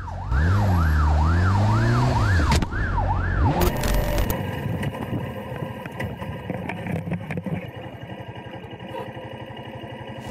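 Ambulance siren yelping, a fast rising-and-falling wail about twice a second, for the first few seconds. After that it gives way to a motorcycle engine running steadily.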